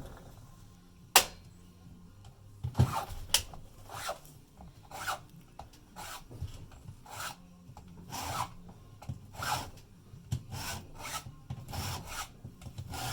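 Hand file being drawn across chainsaw chain teeth in repeated rasping strokes, roughly one a second, with a sharp click about a second in.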